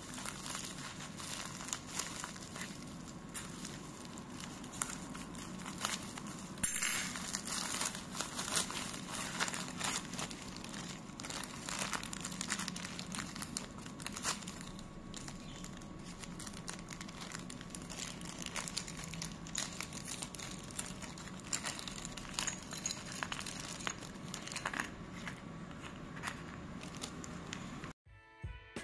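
Plastic packaging bags being crumpled and torn open by hand: dense, irregular crinkling and crackling, loudest about seven seconds in, cutting off suddenly near the end.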